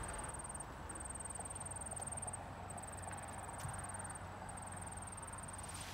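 An insect trilling: a thin, high-pitched buzz repeated in phrases of a second or so with short breaks, over a faint low background rumble.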